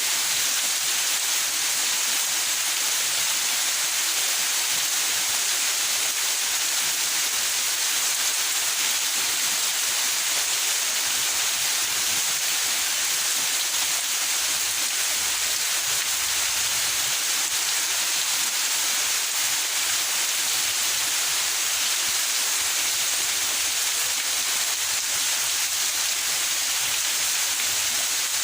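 Steady rain falling in a backyard, a constant even hiss with no letup.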